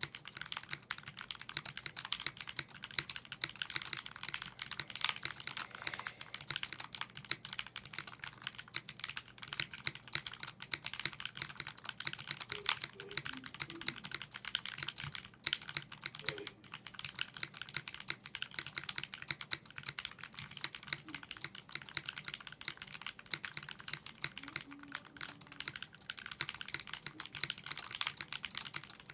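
Continuous fast typing on a CtrlAlt60 60% mechanical keyboard with lubed vintage Cherry MX Black linear switches (65 g), a TEX aluminium case and Desko keycaps: a dense, even stream of keystrokes.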